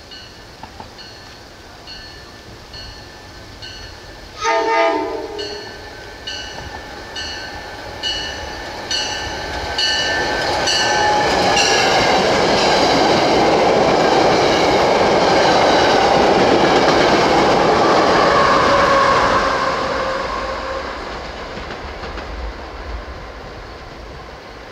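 SEPTA regional rail train approaching and passing: a horn blast about four seconds in, then a loud rush of wheels on rail as the cars go by close, fading as the train moves off. A bell dings steadily through the first half.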